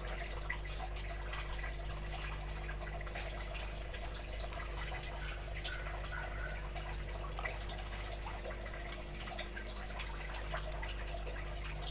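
Water dripping and trickling steadily, with a few small clicks, over a low steady hum.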